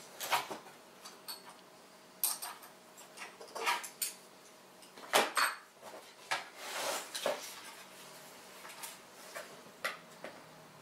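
Glass lenses in aluminium reflector rings clinking and knocking against each other and the metal grow light housing as they are picked up and set down, a series of separate sharp clinks with a short scraping rustle partway through.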